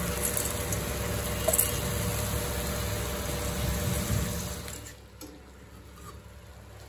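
Hot chicken masala frying in a wok as soaked rice is tipped in, a steady sizzle that drops much quieter about five seconds in, followed by a few faint spatula scrapes.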